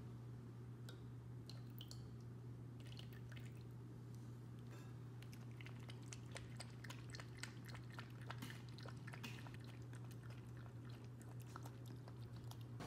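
Shih-poo puppy eating from a stainless steel bowl: faint chewing with small crunches and clicks, more frequent after the first few seconds, over a steady low hum.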